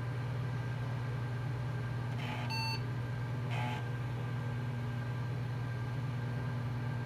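Steady hum of an IBM PC XT's power supply and fan, with a short beep from the PC speaker about two and a half seconds in and a briefer, slightly lower tone about a second later. A single short beep at boot is the IBM BIOS signal that the power-on self-test passed.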